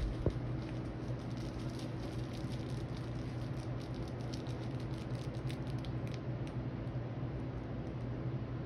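A small chihuahua-type dog chewing and gnawing a plush toy on a bed: quick wet mouth clicks and rustling of fabric, busiest for the first six seconds or so and thinning out after, over a steady low hum.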